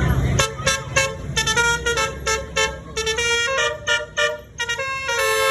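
Indonesian 'telolet' bus horn, a multi-tone musical horn, playing a tune: a rapid run of short toots at changing pitches, ending on a longer held note.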